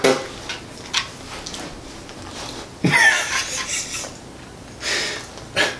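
Scattered rustling and scuffing as a squirming dog is held and handled, with a short laugh about three seconds in.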